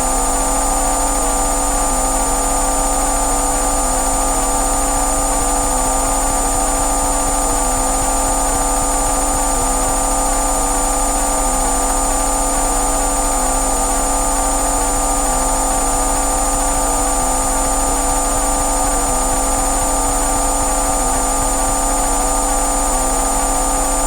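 Synthesized bioresonance frequency tones: several steady electronic tones, from a low hum up to a high whine, layered over a hiss and pulsing faintly about once a second.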